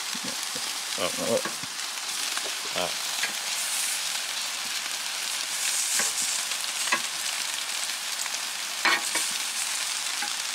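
Sausages sizzling on a barbecue grill, a steady hiss, with a few short clicks as metal tongs turn them against the grill.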